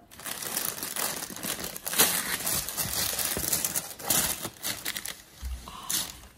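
Tissue paper rustling and crinkling as it is unfolded and pushed aside from folded clothes in a cardboard parcel box, in irregular handfuls, loudest about two seconds in and again about four seconds in.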